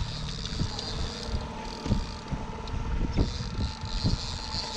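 A boat's motor running steadily, with wind buffeting the microphone and irregular low thumps.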